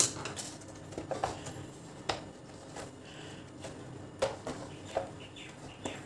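Hard plastic clicks and knocks from handling the opened housing of a vacuum cleaner as a part is pried up to reach a loose power wire. A sharp knock comes right at the start, then scattered single clicks follow about every second.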